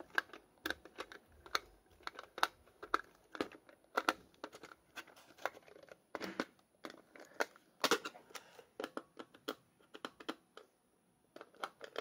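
Irregular clicks, taps and light plastic crinkling from hands handling a small plastic toy and its plastic packaging, with a short lull a little before the end.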